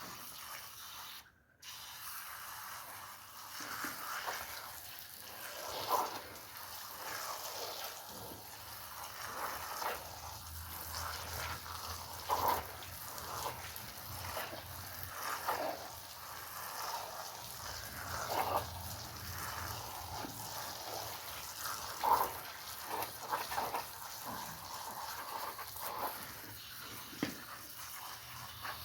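Water spraying and splashing over a soaked woolen rug as it is washed, with louder swishing strokes every few seconds.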